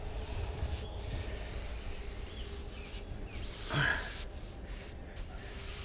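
Paintbrush stroking deck paint onto wooden boards, a soft rubbing over a steady low rumble, with a brief sound from the painter's voice about four seconds in.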